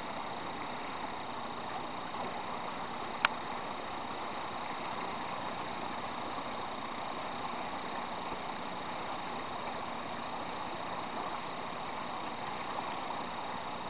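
Shallow river rushing over rocks, a steady noise. There is one sharp click a little over three seconds in.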